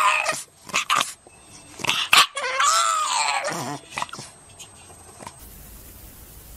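White bulldog puppy howling: a short howl at the start, then about two and a half seconds in a longer howl that slides down in pitch at its end. A few sharp clicks come between the howls.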